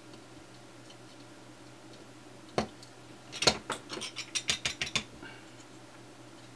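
Small hand tools and parts clicking during work on a DMX LED PAR can's XLR connector board: one sharp click, then about a second later a quick run of about ten sharp clicks lasting a second and a half.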